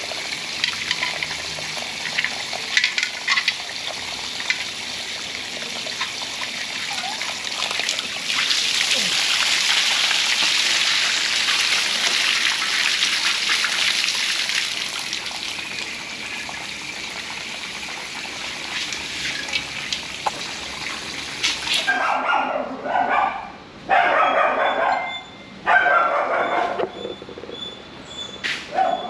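Running water hissing steadily as the water heater's parts are washed clean of scale and sludge, louder for a while in the middle, then stopping suddenly about 22 seconds in. A dog then barks four times.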